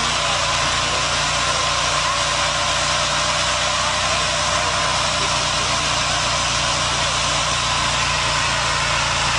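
An old full-size SUV doing a burnout in place: the engine is held at high revs while the rear tyres spin on the asphalt, one steady, unbroken noise at a constant level.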